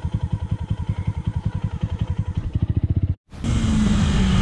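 Sport motorcycle engine running at low revs with an even, pulsing beat. About three seconds in it cuts off sharply, and a second sport motorcycle takes over, cruising with a steady engine hum and wind noise.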